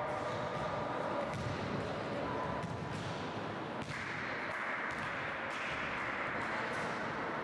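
Basketballs bouncing on a sports-hall floor as players dribble and shoot, with scattered thuds at irregular moments.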